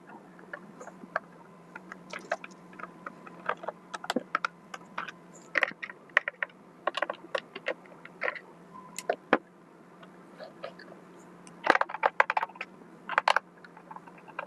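Irregular small clicks and taps of plastic parts and screws being handled and fitted while a robot vacuum mop is worked on by hand, over a faint steady hum.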